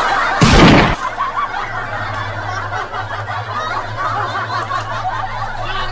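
A loud burst in the first second, then people laughing and snickering over a steady low hum.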